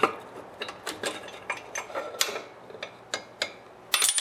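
Small-engine crankshaft being worked out of the block by hand: irregular metal clicks and clinks as the shaft, its timing gear and the connecting rod knock together, with a louder clatter near the end as it comes free.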